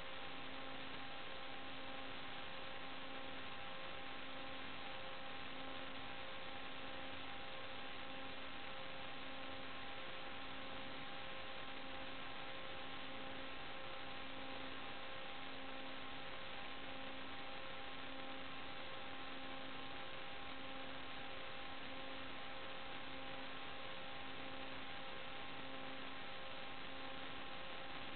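Steady electrical hiss and hum with a few fixed tones, the lowest one pulsing on and off about once a second: interference on the FPV video link's audio channel rather than any sound of the flight, which stays the same while the craft manoeuvres.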